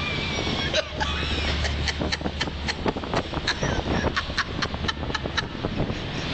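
Strong wind blowing and buffeting the microphone, with a rapid run of sharp clicks or taps, about three or four a second.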